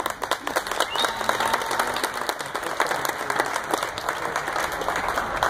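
Audience applauding: a dense run of hand claps that thins out near the end.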